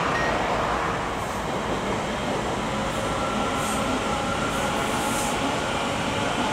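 Colas Rail Freight Class 56 diesel locomotives running, a steady engine drone with faint hum tones through it.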